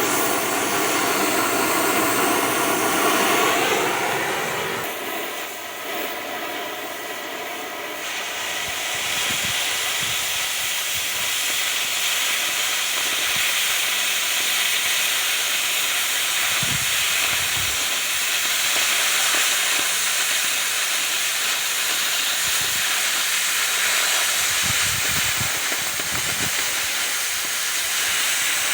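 A cutting torch hissing steadily as it cuts through a 3/16-inch steel plate. A lower-pitched part of the sound drops away about four to five seconds in, leaving the steady hiss.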